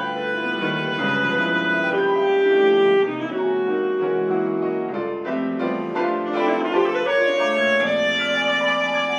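Alto saxophone playing a classical melody over piano accompaniment. There is a long held saxophone note in the first half, then quicker-moving notes after the middle.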